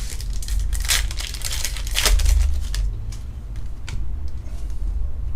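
Foil Pokémon booster pack being torn open and crinkled, in rustling bursts through the first half and a few light clicks later. A steady low hum runs underneath.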